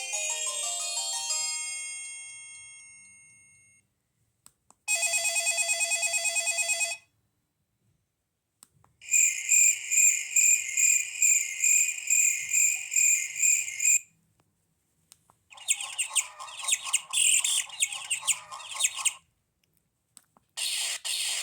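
LG C1500 mobile phone playing a run of its built-in ringtones one after another with short silent gaps: a melody fading out, a short buzzing pulsed tone, a fast warbling trill like a phone ring, then a chirping pattern, with another tone starting near the end.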